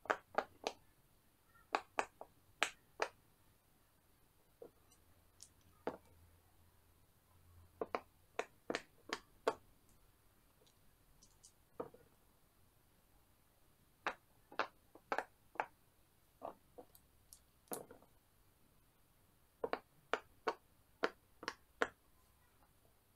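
Silicone pop-it bubbles pressed in one at a time by a finger, each giving a sharp pop. The pops come in short runs of three to six with pauses between.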